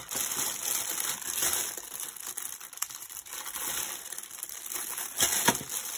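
Plastic bubble wrap crinkling and crackling as it is handled and unwrapped, with a couple of louder sharp crackles just after five seconds in.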